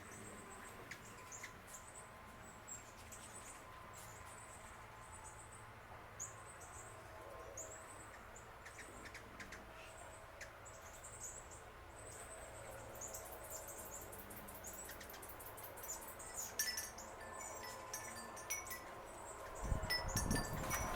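Small birds chirping: many short, high-pitched squeaky chips and twitters, repeated irregularly and growing busier in the second half. A low rumble rises near the end.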